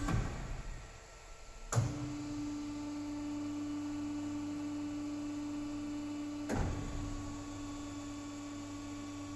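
Kasto KASTOTEC AC 3 automatic metal band saw running with a steady hum. It is broken by three clunks from the machine's clamping and feed mechanism: one at the start, a sharper one about two seconds in, and one about six and a half seconds in. The hum dips briefly after the first clunk and returns with the second.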